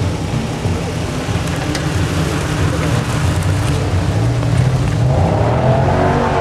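Jeep Wrangler's engine running at crawling speed off-road, revving higher about five seconds in.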